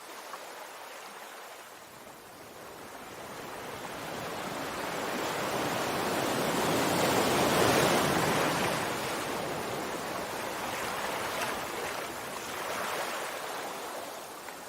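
Sea waves washing onto a shore: one wave swells up over several seconds, peaks about halfway through, then drains away more slowly.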